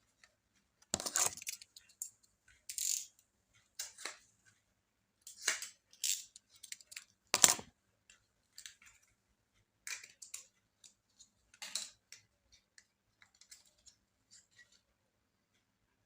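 Irregular light clicks, taps and scrapes of small laptop parts being handled during disassembly, the sharpest one about seven seconds in.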